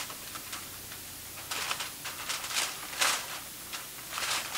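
Aluminum foil being peeled back from a baking dish, crinkling in irregular bursts starting about a second and a half in, the loudest about three seconds in.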